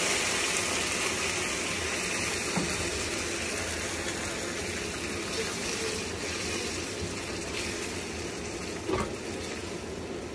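Tomato pasta sauce sizzling in a hot frying pan, a steady hiss that slowly dies down as it is stirred with a silicone spatula, with one light tap near the end.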